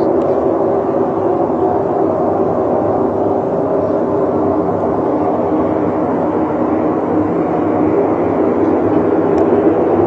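Loud, steady drone of several held metallic tones over a low rumble, the kind of trumpet-like 'strange sound in the sky' reported around the world, its origin unknown.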